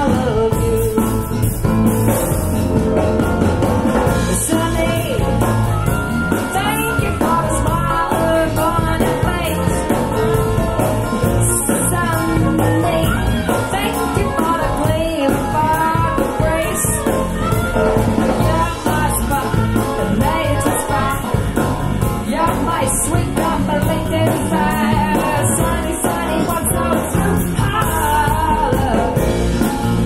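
Live band recording with a singer, drums, bass and keyboard, played back through hi-fi loudspeakers in a room.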